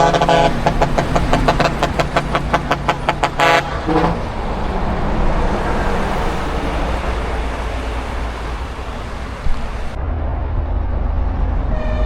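Truck horn sounding a chord in a rapid string of short toots for about three and a half seconds, ending in one short blast. The horn then gives way to low vehicle engine and road rumble.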